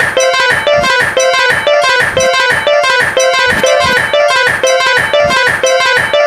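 Background music with a steady beat and a short two-note figure repeating over and over.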